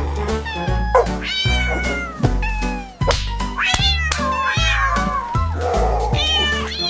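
Cat meowing several times, each meow rising and falling in pitch, over background music with a steady bass line.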